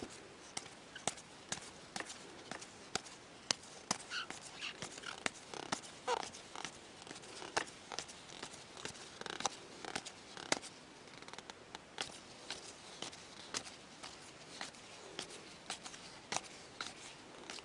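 A stack of glossy trading cards being flipped through by hand, one card at a time, each card making a short click as it is slid off the stack, about two or three a second at an uneven pace.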